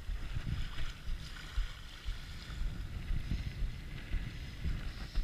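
Wind gusting across the microphone in uneven low rumbles, over a soft steady wash of small waves lapping the shore.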